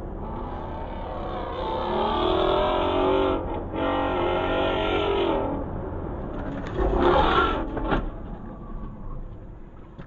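Car sounds: a drawn-out, slightly wavering pitched whine from a vehicle, then a short, loud clatter of impacts about seven seconds in.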